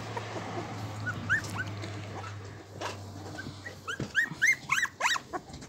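Husky puppy whimpering in short, high-pitched whines that rise and fall, scattered at first, then coming faster and louder from about four seconds in.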